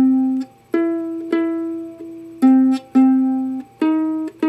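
Ukulele's 3rd string plucked one note at a time as a bass line: about seven single notes, moving between a lower and a higher pitch, each ringing briefly before the next.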